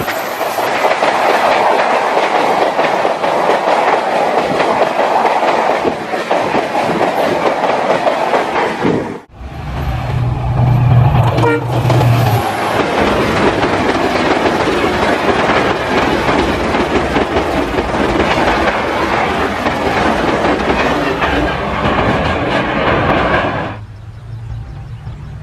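Trains passing at speed, the wheels rattling over the rails with a loud, steady rush of noise. There is a brief break about nine seconds in, then another passing train, with a low steady tone under the noise for about two seconds just after the break.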